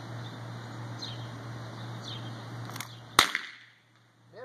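One shot from a Ruger Vaquero .45 Colt single-action revolver, fast-drawn from the holster, about three seconds in, with a short ring-out after it.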